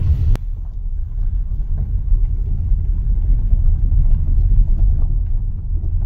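Steady low rumble of a car rolling slowly over a gravel road, heard from inside the cabin. Just after the start a side window shuts with a click, cutting off the hiss of outside air.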